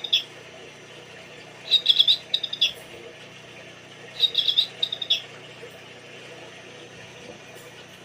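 Bird-sound clock playing a recorded songbird chirp, the same short phrase repeated about every two and a half seconds: the end of one at the start, then two full phrases, stopping about five seconds in.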